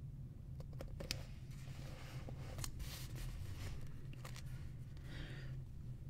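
Book pages being turned and handled: a few sharp paper clicks and crinkly rustles, over a steady low hum.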